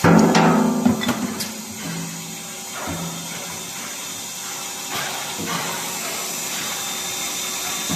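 Wooden hammer handle sanding machine running with a steady hiss, a loud sanding burst at the start that fades over about two seconds, and smaller bursts about three and five seconds in.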